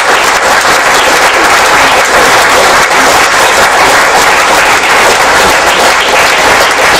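An audience in a large hall applauding, a dense, steady sustained clapping at the end of a talk.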